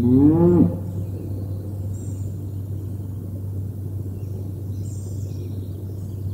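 A cow lowing once, a rising moo that ends within the first second, over a steady low hum. Faint high bird chirps come about two and five seconds in.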